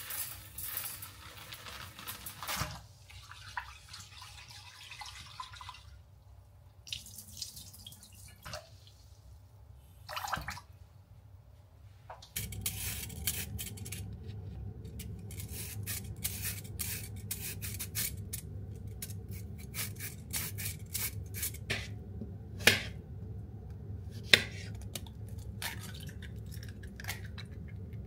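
Kitchen sounds in short segments: water and dripping, with dishes being handled. About halfway through, a steady low hum starts under a run of small clicks and clatters, with two sharp knocks near the end.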